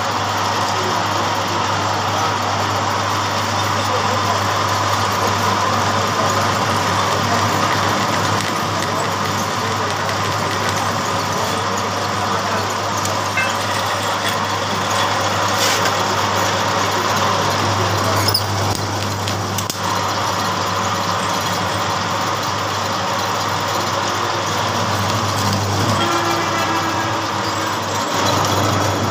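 Metal lathe running steadily, a single-point tool turning and thread-cutting the end of a steel tractor spindle: a constant motor hum under the scrape of the cut.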